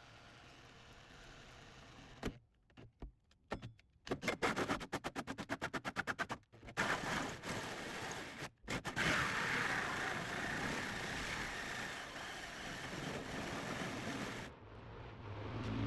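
Power drill with a hole saw cutting into an aluminium camper wall. It starts with a few short stop-start bursts, then about two seconds of rapid pulsing, then cuts steadily for about eight seconds before stopping near the end.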